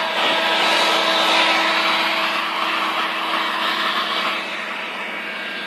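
Electric heat gun running steadily: an even rush of blown air over a steady motor hum.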